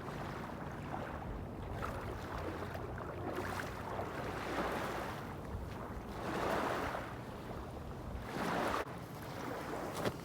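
Small waves washing in the shallows, with a few swelling surges of water, over wind noise on the microphone.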